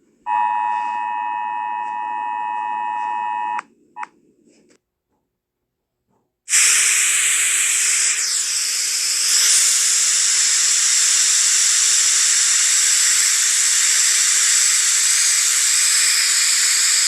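A steady two-tone Emergency Alert System attention tone sounds for about three seconds. After a short blip and a pause, loud even TV static hiss starts about six seconds in and continues.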